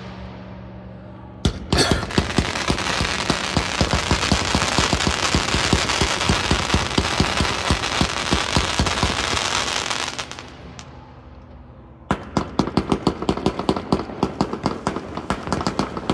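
A 1.4G consumer fireworks cake firing. About a second and a half in, a dense run of rapid shots and crackling starts and fades out around ten seconds in. Near the end a new string of sharp reports follows, several a second.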